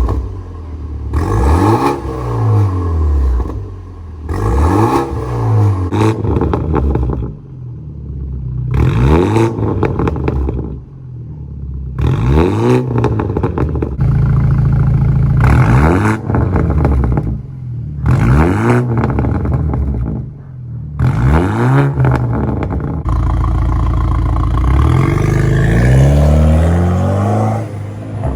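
Exhaust of a BMW 428i's turbocharged four-cylinder engine, running through a catless downpipe and muffler delete, revved again and again. Each rev rises and falls quickly, about every two seconds, and twice the revs are held up high: briefly near the middle and longer toward the end.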